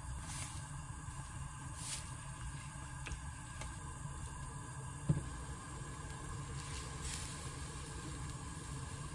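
Kimchi stew cooking in an earthenware pot on a gas burner, with a low steady rumble. Faint clicks come as a wooden spoon stirs and ingredients drop in, and one dull knock sounds about five seconds in.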